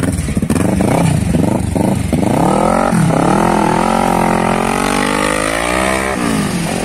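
Motorcycle engine blipped a few times, then accelerating hard away through the gears: the engine note climbs, drops at a gear change about three seconds in, climbs again, and drops once more near the end.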